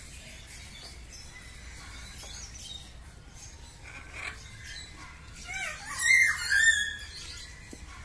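Palm cockatoo calling: a short run of rising and falling whistled notes about five seconds in, leading into two loud calls close together.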